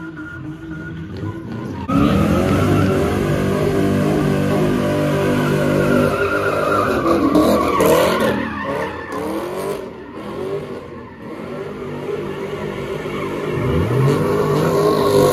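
Car engine held at high revs with the tires squealing as the car slides through doughnuts. The sound jumps sharply louder about two seconds in, and the revs rise and fall again around eight and fourteen seconds.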